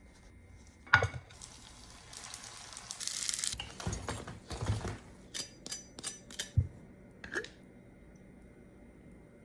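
Kitchen food-prep sounds: a sharp clink of a utensil against a dish about a second in, then a couple of seconds of hissing, then a run of knocks and light taps and another clink.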